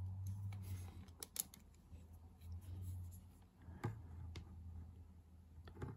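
Faint handling of a toy car's plastic blister card, giving a few light clicks and crinkles over a low hum.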